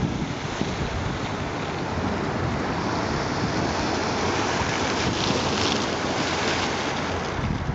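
Choppy Lake Michigan waves washing and splashing against the concrete shore edge in a steady rush, with wind noise on the microphone.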